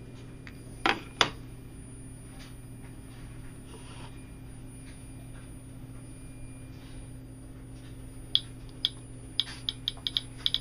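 Kvarts DRGB-01 Geiger-counter dosimeter clicking over low steady hum: two sharp clicks about a second in, then near the end the clicks quicken to several a second. The owner takes the fast count for raised radiation in rain-washed samples.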